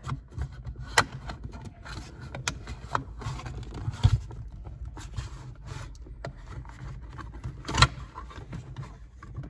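Plastic trim covers of a rear-view mirror mount being handled and pressed together, with scattered scrapes and sharp clicks of plastic, the loudest click near the end. The covers won't close because wires are caught in their way. A low steady hum runs underneath.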